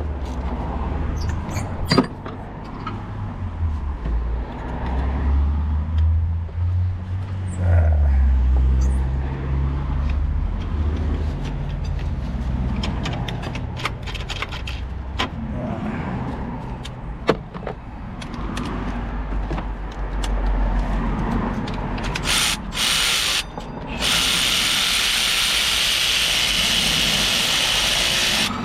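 Hand tools clicking and knocking against metal over a low rumble, then a power tool running in short bursts and then steadily for about four seconds near the end.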